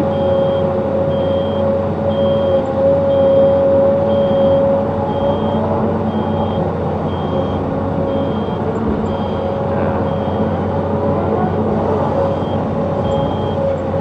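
Zoomlion ZE215E excavator's engine and hydraulics running under load as the bucket digs, lifts and swings, heard from inside the cab, with a steady whine in the drone. A short high warning beep repeats about twice a second throughout.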